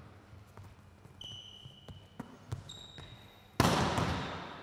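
Volleyball drill sounds in a hall. Several light knocks are followed by two brief high squeaks of sports shoes on the court floor. About three and a half seconds in comes a loud smack of the volleyball being struck, ringing on in the hall's echo.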